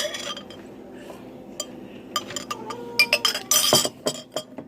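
Drinking glass clinking as it is handled, a series of sharp clinks with a brief ringing tone midway and a short rattling rush near the end.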